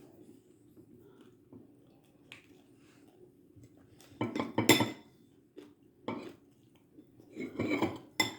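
Dishes and cutlery clinking in a few short bursts, mostly in the second half, with one sharp click near the end.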